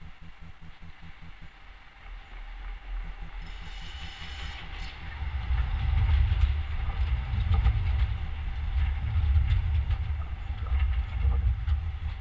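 Škoda 15T low-floor tram passing close by on its rails: a low rumble that builds as it approaches, is loudest as it goes past about six seconds in, and eases a little near the end. A brief high squeal comes about four seconds in.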